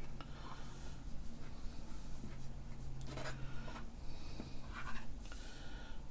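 Fresh pasta dough being cut into wide pappardelle strips, a blade scraping across the sheet and board in a few short, uneven strokes. A low steady hum runs underneath.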